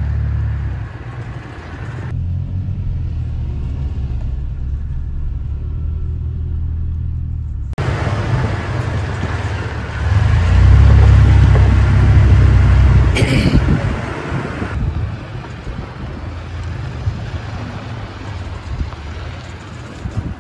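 Off-road 4x4 truck running along a dirt trail, a steady low rumble that changes abruptly about 2 and 8 seconds in and is loudest a little past the middle.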